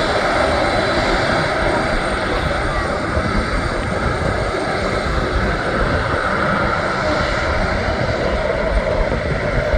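Embraer E190's twin GE CF34-10E turbofan engines running with a steady jet roar, holding level throughout.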